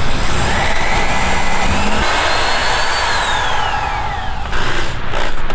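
Cordless drill running under load up into the underside of a plywood sheet. Its motor whine climbs in pitch for the first few seconds, then slides down and stops about four and a half seconds in.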